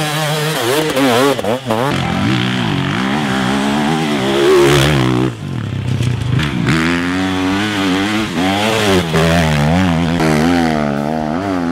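Enduro motorcycle engine running and being revved, its pitch rising and falling repeatedly, with a short drop about halfway through before the revving picks up again.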